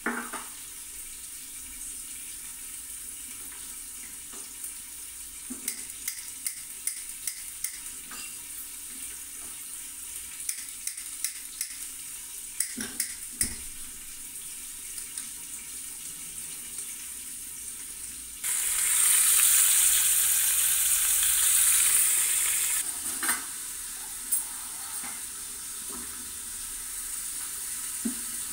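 Steady hiss of a pot of potatoes in water heating on the stove, with scattered small clicks and knocks. Past the middle, a much louder rushing hiss runs for about four seconds and stops.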